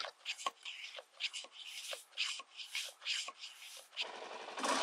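Small hand pump being stroked to inflate a dirt bike's knobby tyre, each stroke a short rasping hiss of air with a light click, about two to three strokes a second. The tyre is being pumped up from a low off-road pressure for pavement riding. Near the end the strokes stop and a steady rushing noise takes over.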